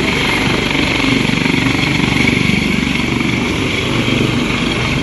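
Helicopter taking off and hovering low, its main rotor and turbine engines running at full power with a steady, loud, rapid rotor chop.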